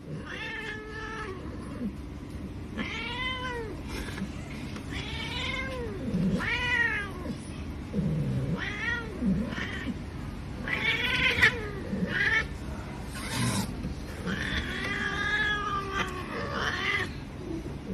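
A cat meowing over and over, a call every second or two, each rising and falling in pitch, with one longer, drawn-out meow near the end.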